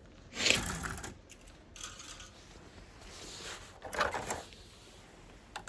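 Plastic model-kit sprues being handled: rustling and light clicking of plastic, loudest about half a second in and again about four seconds in.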